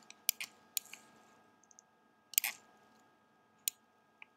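About seven sharp, separate clicks of a computer mouse and keyboard, the loudest about two and a half seconds in, over a faint steady hum.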